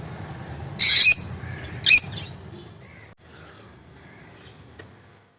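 Small pet parrots screeching: two loud, shrill squawks about a second apart, then only faint background sound before the audio cuts off near the end.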